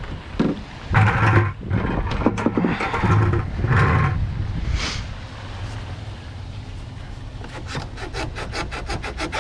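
Rubber coolant hose being twisted and worked off its neck, with rough rubbing and scraping in bursts, then a quick run of sharp clicks near the end.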